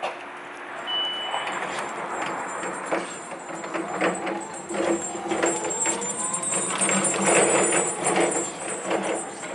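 Atlet UNS200 electric reach truck driving and turning: the electric drive motor whines, rising in pitch as it picks up speed about four seconds in, with repeated clanks and rattles from the mast and forks.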